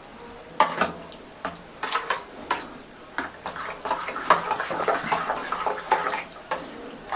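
Thick yogurt-and-soy mixture being stirred in a steel bowl: wet squelching, with irregular sharp clinks and scrapes against the metal, several a second.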